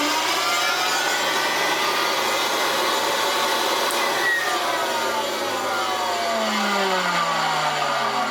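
Hoover Senior 652A upright vacuum cleaner's motor running with the brush roll removed, a loud, rough, bad-sounding noise with several whining tones that drift down in pitch in the second half. The bad sound is still there without the brush roll, which the owner puts down to the fan case bearing.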